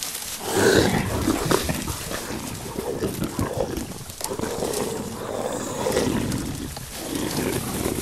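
Loud, rough animal-like growling and roaring in irregular swells, like a beast on the hunt.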